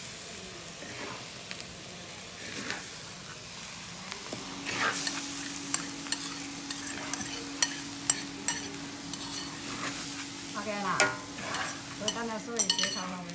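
A metal spatula stirring and scraping food frying in a wok, with a sizzle underneath and frequent sharp clinks and scrapes of the spatula against the pan. A steady low hum joins about four seconds in.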